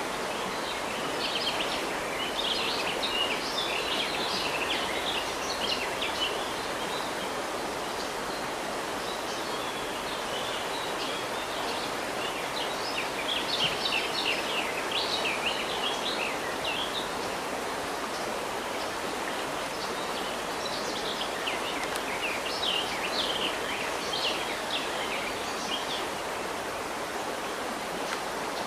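River water flowing steadily, with a bird singing over it in three bouts of quick chirping notes.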